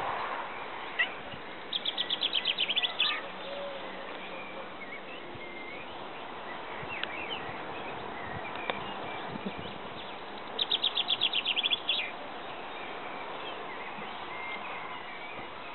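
Songbirds: one bird sings a fast, high trill of evenly repeated notes twice, several seconds apart, while other short chirps come and go in the background.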